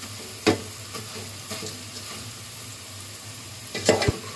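A spoon stirring dry vermicelli with potatoes in a metal pot over a faint, steady sizzle, scraping and knocking against the pot. There is one sharp knock about half a second in and a cluster of knocks and scrapes near the end.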